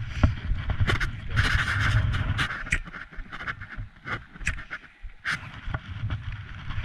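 Wind rumbling on the microphone of a handheld camera, with rustling and irregular knocks as the camera is handled and covered by a hand.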